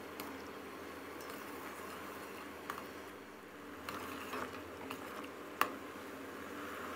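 Sweet fish sauce syrup of coconut sugar, fish sauce and tamarind bubbling faintly as it simmers down to thicken in a stainless steel pot. A metal ladle stirring it gives a few light clicks against the pot, the sharpest near the end.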